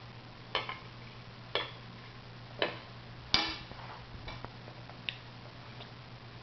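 Metal fork clinking against a plate: several light, ringing clinks about a second apart, the loudest a little past halfway.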